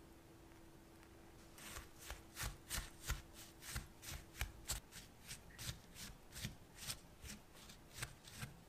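Wooden spatula stirring buttery biscuit crumbs in a glass bowl: a run of short scraping, crunching strokes at about three a second, starting a couple of seconds in.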